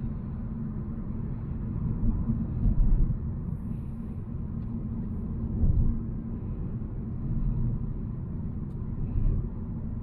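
Volvo C70 driving: a steady low rumble of engine and road noise, with a few brief louder swells.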